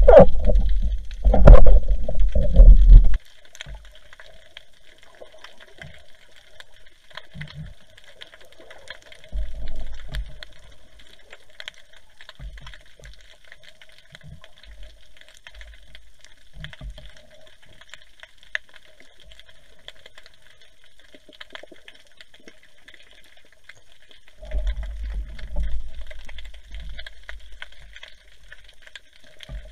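Underwater sound picked up by a camera housing on a speargun: loud low rumbling of moving water for the first few seconds, then a faint steady hiss, with a brief low rumble about ten seconds in and a longer one near the end.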